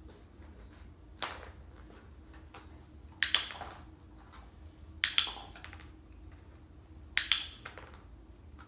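Three loud, sharp clinking clatters about two seconds apart, each with a short rattle after it, following a lighter knock about a second in.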